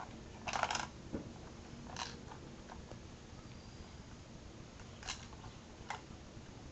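Plastic Lego bricks of a hand-built vending machine clicking and rattling as it is worked by hand: a short rattle about half a second in, then single clicks about 2, 5 and 6 seconds in.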